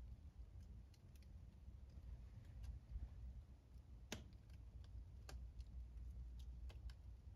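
Fire in a fireplace crackling faintly, with scattered small pops and ticks; the sharpest pop comes about four seconds in and another just after five seconds, over a low steady hum.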